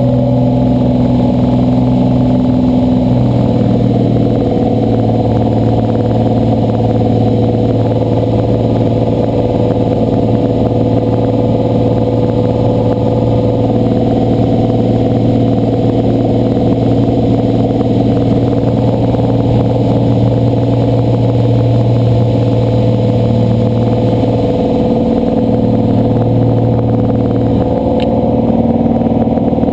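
Slingsby T-67 Firefly's piston engine and propeller running steadily, loud as heard inside the cockpit. The engine note steps slightly lower about three seconds in and dips briefly near the end.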